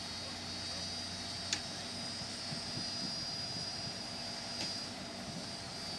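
Heavy-duty wreckers' diesel engines running steadily under load, with a steady high whine, as they lift an overturned cement mixer truck. A single sharp click about one and a half seconds in.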